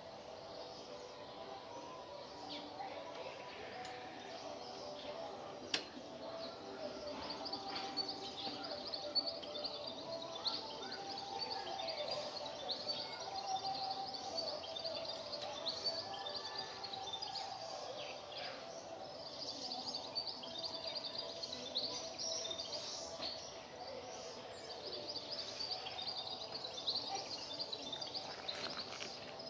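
Small birds chirping busily and continuously in the background, with a few light clicks from hand work on a bicycle and one sharper click about six seconds in.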